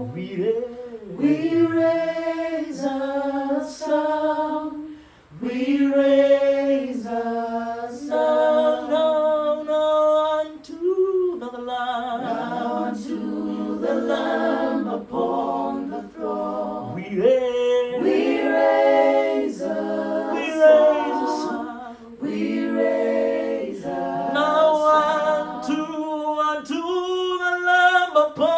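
Unaccompanied voices singing a gospel worship song a cappella in close harmony, in long held notes with slides between them.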